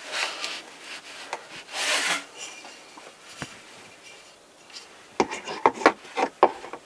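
A wooden toilet-paper holder rubbing and scraping against a wooden panel. From about five seconds in comes a quick run of sharp wooden knocks and clicks as it is worked onto its mounting screws.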